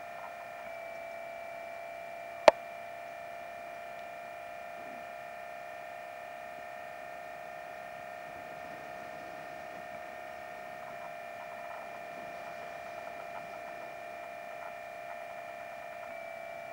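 A steady electrical whine made of several high, level tones, with one sharp click about two and a half seconds in.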